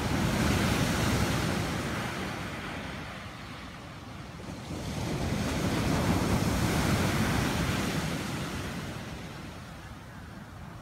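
Ocean surf breaking on a beach and washing up the shore, a rush of noise that swells and fades in two long waves.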